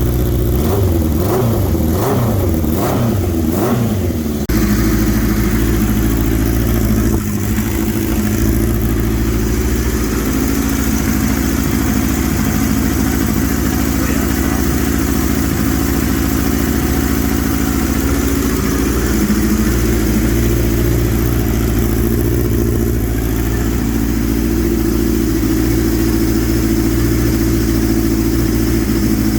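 1983 Suzuki GS inline-four engine running on its first start after restoration, its carburetors not yet adjusted. The revs waver up and down for the first few seconds, then it settles into a steady idle.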